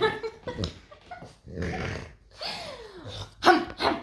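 French bulldog growling in play, mixed with a woman's imitation barks and growls, in short irregular bursts with the loudest near the end.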